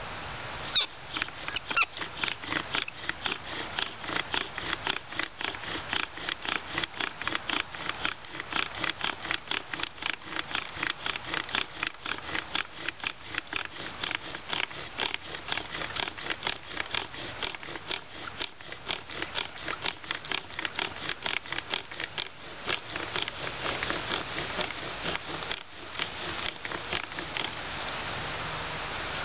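Bow drill being worked for a friction fire: a tulip poplar spindle grinding in its hearth board, a rhythmic scraping of about three bow strokes a second that stops suddenly about 25 seconds in.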